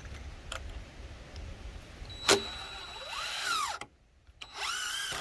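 A sharp knock about two seconds in, then a power drill run twice, its pitch rising and falling with each pull of the trigger.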